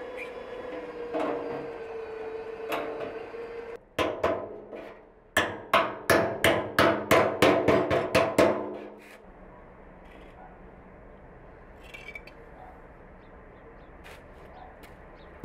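Hammer blows on the cut edge of a 200-litre steel drum: after a quieter stretch of steady noise, two strikes and then a rapid run of about a dozen sharp, ringing metallic strikes, three or so a second, stopping about two-thirds of the way in.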